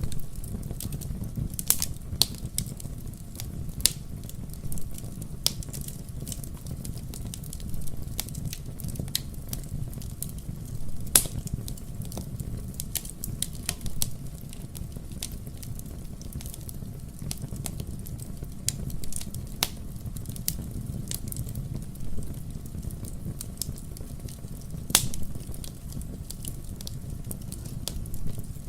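Fire burning in a fireplace: irregular sharp crackles and pops over a low, steady rumble of the flames, with one especially loud pop a little before the middle.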